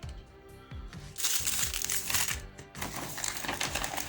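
Plastic ration-pack food sachets crinkling as they are handled, starting about a second in with a short pause near the middle, over background music.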